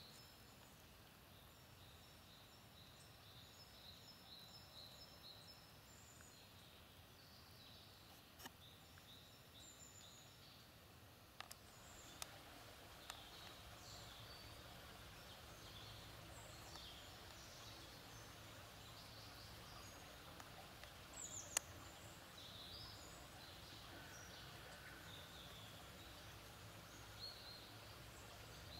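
Quiet outdoor ambience: faint, scattered bird chirps over a low background rumble that grows slightly louder about twelve seconds in, with a few single sharp clicks.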